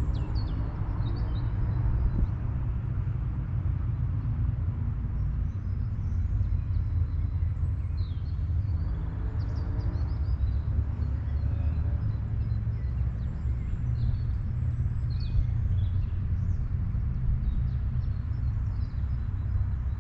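Outdoor woodland recording with a steady low rumble throughout, over which small birds chirp and call on and off.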